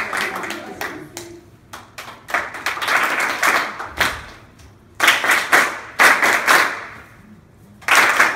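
A group of people clapping their hands together in bursts of rapid clapping that start loud and die away. Fresh bursts start about two, five, six and eight seconds in, with near-pauses between them.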